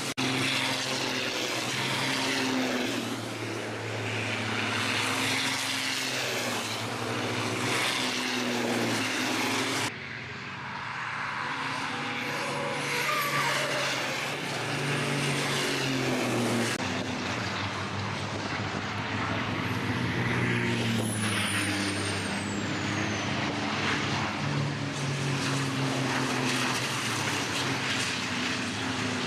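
Turbocharged diesel engines of racing trucks running hard past on a circuit, several at once, their pitch climbing and falling as they accelerate and shift. The sound changes abruptly twice, about a third of the way in and again just past halfway.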